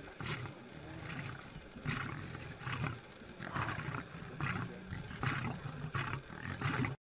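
A wild animal calling in repeated rough bursts, about one every three-quarters of a second, cut off suddenly near the end.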